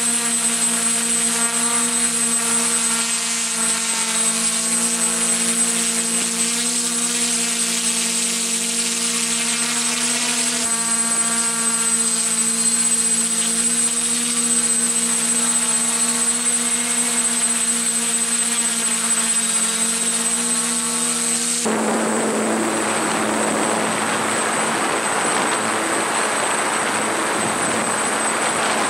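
Multirotor drone's brushless motors and 11-inch propellers humming steadily in flight, with a thin high whine above the hum. About three quarters of the way through, the pitched hum gives way to a rushing noise.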